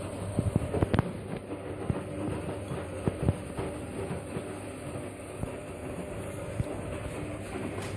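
Siemens washing machine running, with a steady low hum and irregular clicks and knocks from the turning drum, thickest in the first few seconds.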